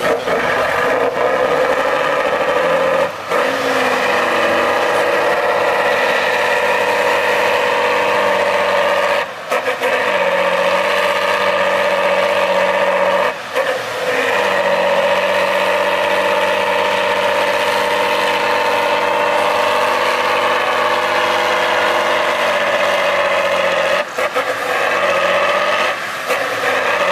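Tatra 813 eight-wheel trial truck's diesel engine running hard under full load as it climbs a steep slope, revs dipping briefly a few times and picking straight back up.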